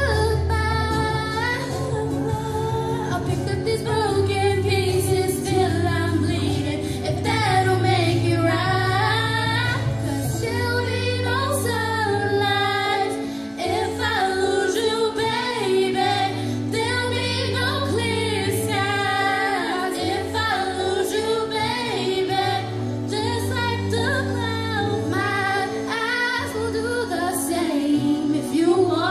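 Two girls singing a slow pop ballad duet into microphones over a recorded backing track with sustained low chords.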